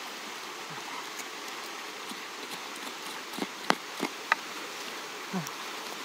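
Steady buzzing of forest insects, with a few sharp clicks a little past the middle.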